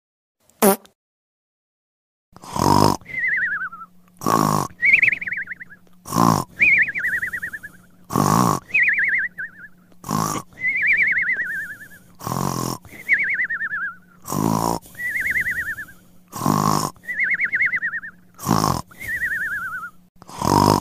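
Cartoon snoring sound effect repeating about every two seconds, about ten times: a rasping snore on each in-breath, then a high whistle that falls in pitch with a wobble on each out-breath. A short click comes before the snoring starts.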